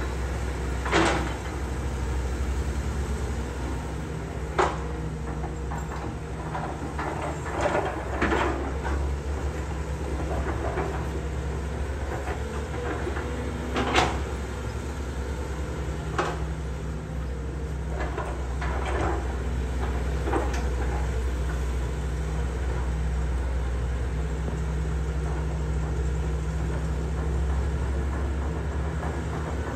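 Caterpillar hydraulic excavator's diesel engine running steadily as it digs soil, with sharp metallic clanks from the bucket and boom linkage every few seconds, the loudest about fourteen seconds in.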